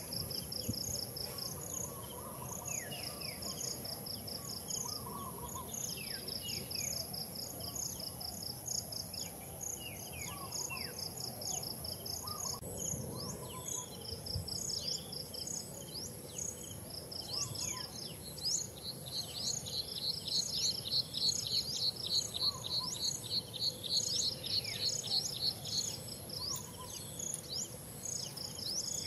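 Outdoor insect and bird ambience: insects trill in repeated pulsing bursts over a steady high-pitched whine, the trilling growing louder past the middle, with short falling bird chirps scattered among it.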